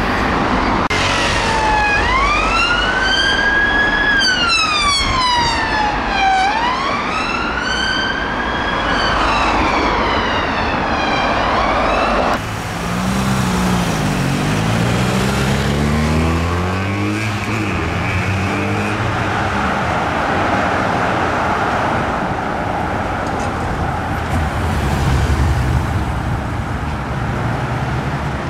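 An unmarked police car's electronic siren on wail, rising and falling slowly about every four seconds after a brief quicker warble at the start. It cuts off suddenly at about twelve seconds. After that, fainter, lower gliding siren tones from a blue-light police convoy with motorcycles, over the sound of traffic.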